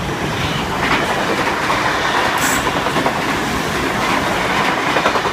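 Sydney Trains V-set double-deck electric train passing through on the track beside the platform: a loud steady rumble of wheels on rail, with occasional clicks. A brief high squeal comes about two and a half seconds in.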